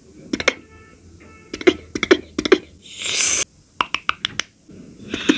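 Mouth-made foley sounds imitating food preparation: clusters of sharp clicks and knocks, a short hiss about three seconds in, then more quick clicks, with a steady hiss building near the end.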